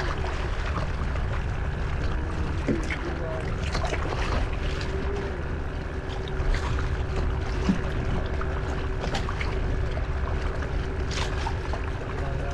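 Strong wind rumbling on the microphone over choppy water lapping against a kayak's hull, with scattered small splashes and knocks and a faint steady hum underneath.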